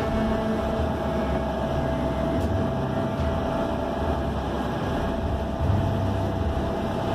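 A whale-watching boat's engine running steadily while under way, with a constant mid-pitched hum over a low, uneven rumble and the rush of water churning along the hull.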